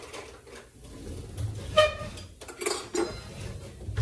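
Kitchen dishes and utensils clinking: a few light knocks and clatters, with one brief ringing clink about two seconds in.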